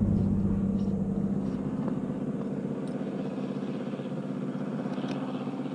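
An engine running steadily with a low hum, slowly fading away.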